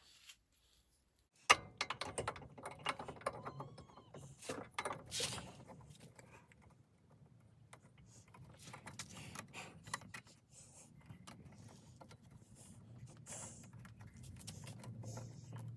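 Metal parts and tools clinking and knocking, a run of irregular sharp clicks that starts suddenly after a second and a half of quiet, with a faint low hum underneath toward the end.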